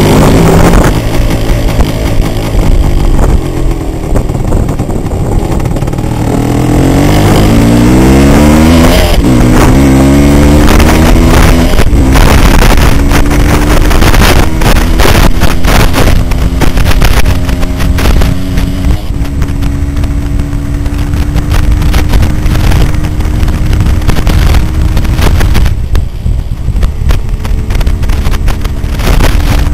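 1978 Yamaha DT400's two-stroke single-cylinder engine under way, its pitch climbing in several rising sweeps during the first nine seconds. It then holds a steadier note that slowly rises and drops back a little near the end. Many short knocks and rattles sound over the engine through the middle stretch.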